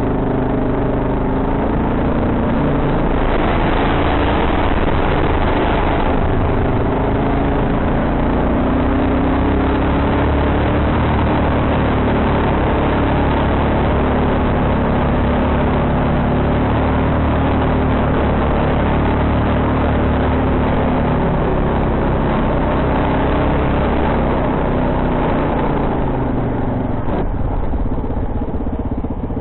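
Quad bike (ATV) engine running while riding, its pitch rising and falling with the throttle.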